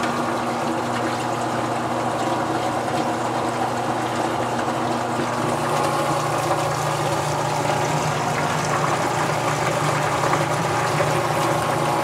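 Electric submersible sump pump running on test, a steady hum with water rushing up the discharge pipe.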